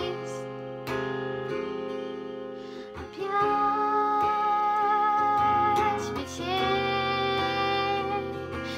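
Acoustic guitar playing sustained chords under a voice singing two long, held notes, the first starting about three seconds in and the second about six and a half seconds in.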